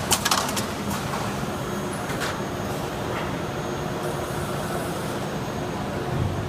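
Automatic screen printing press running: a steady machine hum with sharp mechanical clacks from its moving parts, a quick cluster at the start and single ones about one, two and three seconds in.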